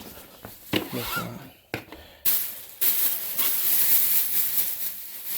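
Plastic bag rustling and crinkling as it is handled and filled with vacuumed dirt and hair, after a couple of sharp knocks in the first two seconds.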